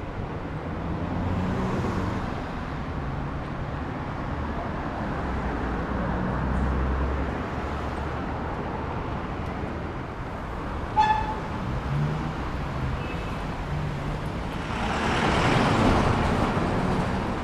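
City street traffic: motor vehicles running past with a steady low engine rumble, a short car horn toot about eleven seconds in, and a vehicle passing close near the end.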